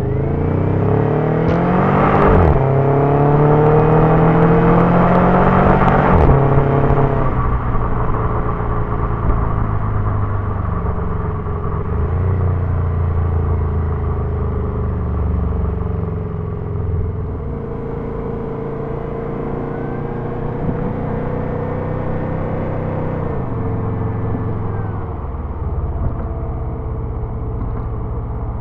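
Subaru twin-turbo engine accelerating hard. Its pitch climbs twice in the first six seconds, each climb broken by a gear change, then it settles into steadier running under light load. A faint turbo whistle rises around twenty seconds in and falls away as the throttle eases near twenty-three seconds.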